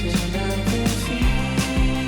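Background music: a guitar-led backing track with a steady beat and held bass notes.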